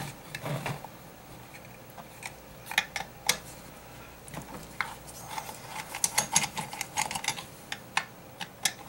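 Irregular small metallic clicks and taps of a screwdriver taking screws out of a car amplifier's metal case, coming more thickly in the second half.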